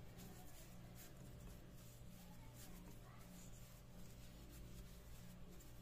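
Near silence: faint soft brushing and rustling of plastic-gloved hands rolling up a strip of bread dough on a floured board, over a low steady hum.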